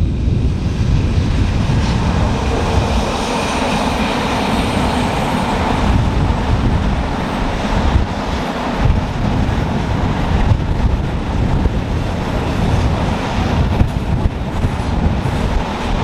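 Freight train of open wagons passing close by behind a Siemens Vectron electric locomotive. A high whine from the locomotive is heard over the first five seconds or so, then the steady rumble and clatter of the wagon wheels on the rails.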